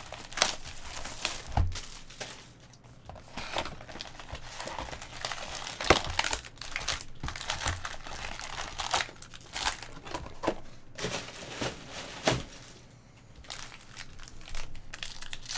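Packaging of a box of Bowman baseball cards being torn open and crumpled: an irregular run of crinkling and tearing, with a few sharper snaps about half a second, six and twelve seconds in.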